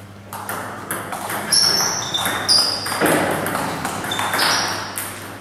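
Table tennis ball clicking off the bats and the table in a rally. Several hits leave a short, high ping.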